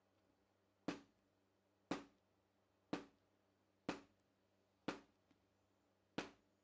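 Hammer striking a five-tooth pricking iron six times, about once a second, driving it through the wallet leather onto a marble or granite slab to punch stitching holes. Each strike is a sharp knock.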